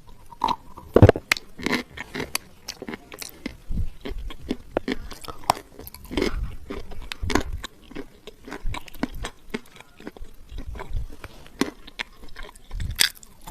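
Close-up biting and chewing of dry edible clay: irregular crisp crunches and sharp snaps as the chunks break between the teeth, with the loudest bite about a second in.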